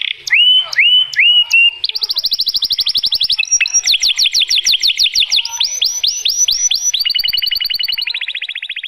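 Domestic canary singing a long, loud song: a few upward-sweeping whistled notes, then long runs of fast trills and repeated sweeping notes.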